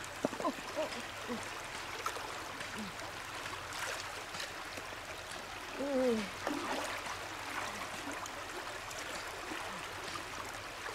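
Shallow river water flowing steadily over rocks, with small splashes as hands work in the water near the start. A short falling call sounds about six seconds in.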